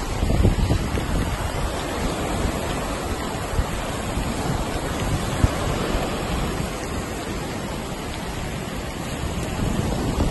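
Wind buffeting the microphone in gusts over the steady rush of rough surf breaking on the shore.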